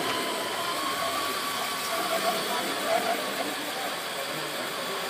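Radio-controlled scale model truck driving: a steady mechanical whine over a hiss, the pitch wavering slightly.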